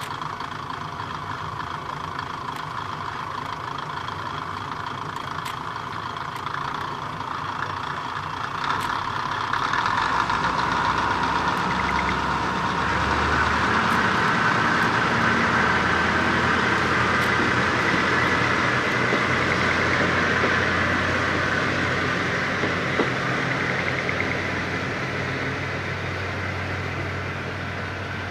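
Kominato Railway diesel railcar idling at the platform, then its engine revving up as the train pulls away. The sound swells about eight to ten seconds in, stays loud through the middle, and eases off toward the end as the train moves off.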